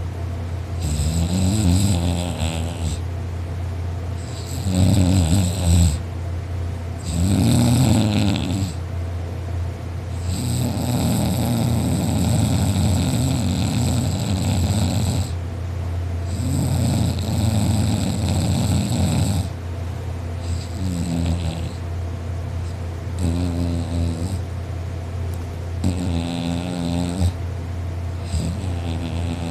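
A man snoring loudly in his sleep: a run of rasping snores every few seconds, some short and one long stretch of about five seconds, over a steady low hum.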